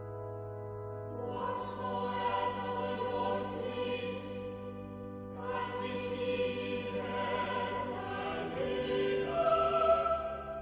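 A choir singing sacred music in long held chords, phrase by phrase, over a low sustained bass note.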